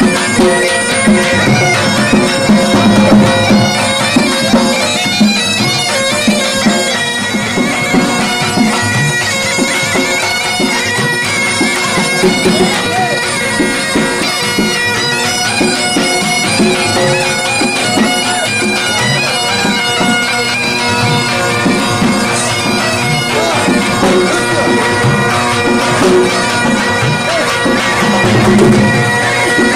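Saraiki jhumar dance music: a dhol drum beating under a reed wind instrument playing a continuous held melody.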